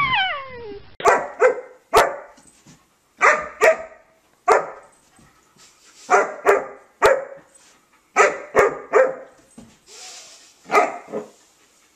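German Shepherd puppy barking in short groups of two or three barks with pauses between. A dog's falling whine tails off in the first second.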